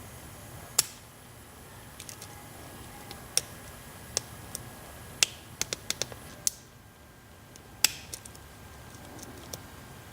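Lock pick and tension wrench working inside a five-pin brass Brinks padlock during single pin picking: scattered sharp metallic clicks, with a quick run of several just past the middle, as the pins are lifted and set.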